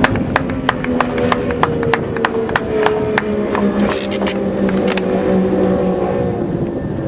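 Outboard motor of a wooden racing powerboat running at full speed as the boat passes, its steady tone sinking slowly in pitch. Sharp clicks about three a second come through it for the first five seconds or so.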